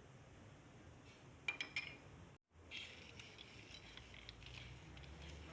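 Faint clinks of utensils on dishware: a quick run of three or four light clinks about a second and a half in, then, after a brief cutout, a soft scraping with small ticks.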